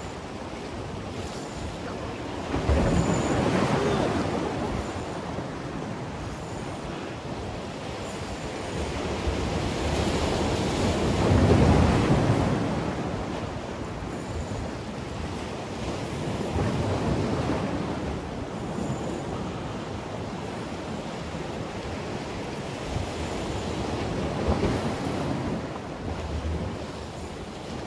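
Sea waves surging and washing against concrete breakwater blocks, rising and falling every several seconds with the loudest surge about twelve seconds in, with wind buffeting the microphone.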